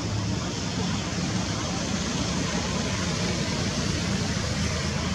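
Steady outdoor background noise: an even rushing haze with a low, constant hum underneath and no distinct event.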